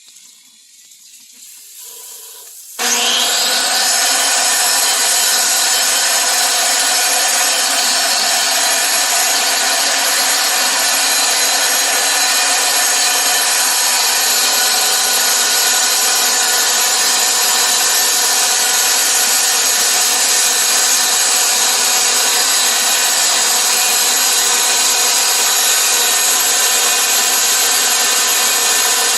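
Wet-or-dry power cutter sawing into a hard rock: after a quieter start it comes in suddenly about three seconds in, then runs loud and steady, a grinding whine with several held tones.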